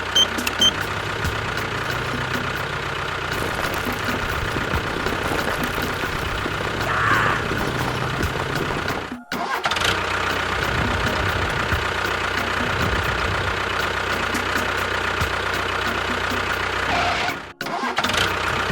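A small motor running steadily with a constant whine and hum, breaking off sharply for a moment about nine seconds in and again near the end.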